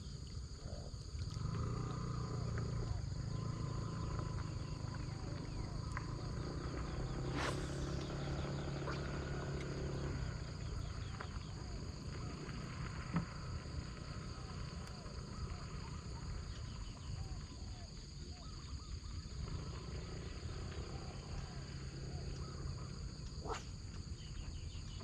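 Steady insect chorus of several high trilling tones over a low rumble, with a sharp click about seven seconds in and another near the end.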